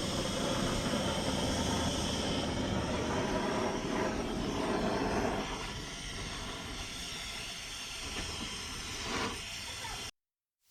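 A blowtorch flame hissing steadily as it heats an aluminium cylinder gland to free it from a steel hydraulic cylinder. It drops in level about halfway through, and the sound cuts off abruptly shortly before the end.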